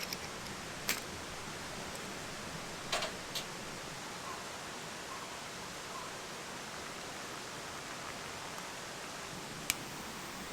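Steady rush of a mountain stream, with a few short sharp clicks: one about a second in, two around three seconds in, and one near the end.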